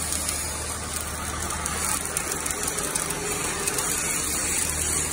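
Electric arc welding on the steel grid of an excavator screen bucket: the arc's steady sizzling hiss, with a steady low hum underneath.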